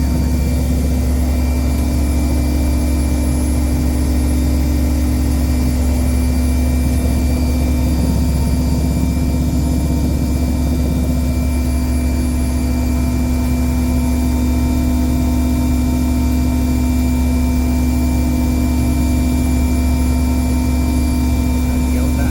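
Large marine diesel machinery running steadily: a loud, unchanging low drone with a steady hum above it.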